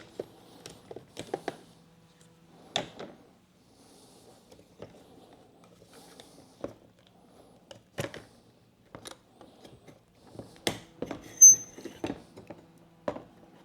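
Scattered clicks and knocks of the dishwasher's pump motor and its mounting bracket being worked loose by hand and rotated out of the base, with a short high squeak about eleven seconds in.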